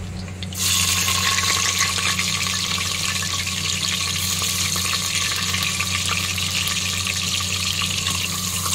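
Sliced onions dropped into hot oil in a pressure cooker, sizzling: a sudden loud frying hiss breaks out about half a second in and keeps on steadily as they are stirred.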